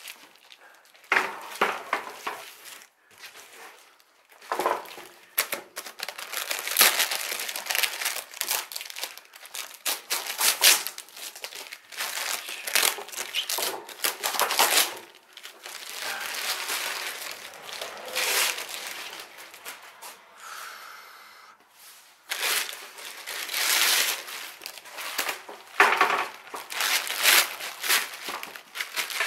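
Plastic protective wrapping being pulled off a steel roof ridge cap and crumpled by hand: loud, irregular crinkling and tearing, with a short lull near the end.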